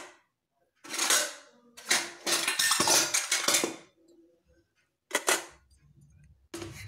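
Small brass and silver puja lamps and plates clinking and clattering against each other as they are set upside down in a plastic bucket to dry. There is a short burst about a second in, a longer run of clatter from about two to four seconds, and one more knock just after five seconds.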